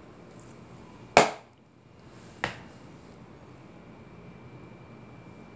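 Two sharp knocks of kitchenware on a hard surface while spices are handled: a loud one with a brief ring, then a softer one about a second later.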